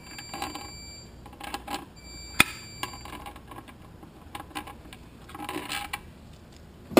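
Light metal clicks and clinks of a 24 mm socket being fitted and turned on the nut of a transmission's neutral-switch shaft, with one sharp metallic clink about two and a half seconds in.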